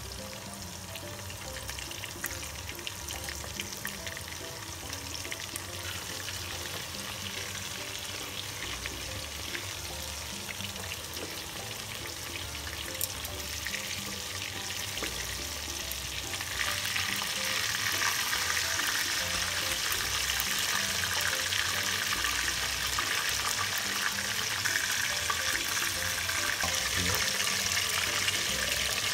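Marinated, coated chicken pieces (karaage) frying in shallow oil in a stainless steel pot, sizzling and crackling steadily. The sizzle grows clearly louder a little over halfway through.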